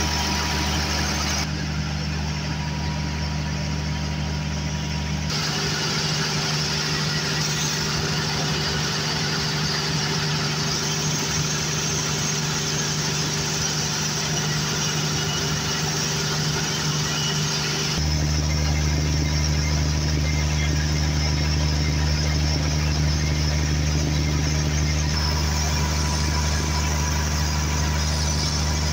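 Cummins turbocharged diesel generator engine running steadily, with its turbocharger and exhaust manifold glowing red hot.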